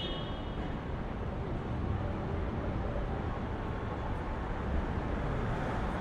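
City street traffic ambience: a steady low rumble of vehicles and engines with no single event standing out.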